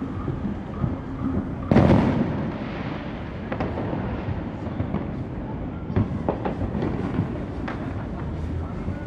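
Fireworks going off in many places at once: a continuous low rumble of distant booms, one loud bang about two seconds in that fades over a second, then scattered sharp pops and crackles.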